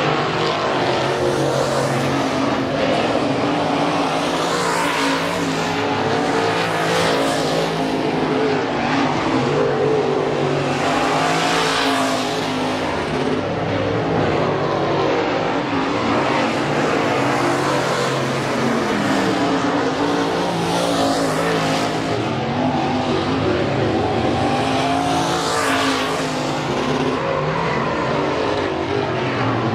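Dirt-track crate late model race cars' V8 engines running hard around the clay oval. The engine note swells and fades again and again as the cars pass on the near side of the track.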